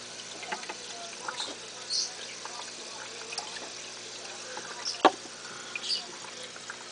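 Aquarium air bubbler and filter running: a steady low hum under trickling, bubbling water. Scattered small clicks throughout, with one sharp knock about five seconds in.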